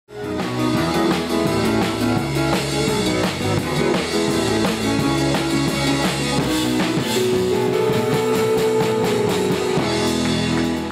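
Channel intro music: a rock-style track with a drum kit and guitar playing over a steady beat.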